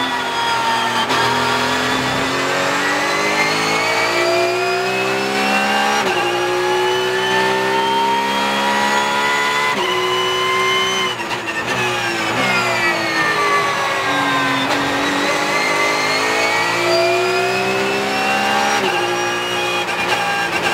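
Porsche 992 GT3 Cup race car's 4.0-litre flat-six heard from inside the cockpit at racing speed. It revs up through the gears with sharp upshifts about six and ten seconds in, then its pitch falls under braking with downshifts, and it climbs again under full throttle.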